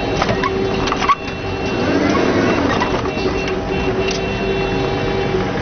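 Humvee's diesel V8 and drivetrain running steadily while driving, heard from inside the vehicle with a steady hum. A few sharp knocks come in the first second or so, the loudest about a second in.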